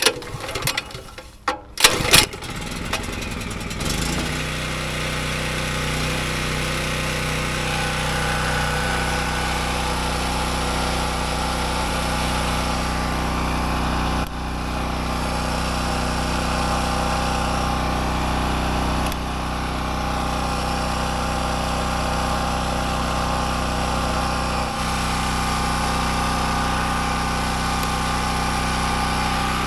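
Champion 3650-watt portable generator (model 100216) being pull-started: a couple of recoil-starter pulls, then its single-cylinder engine catches about two seconds in and settles into a steady run, with small shifts in its note partway through.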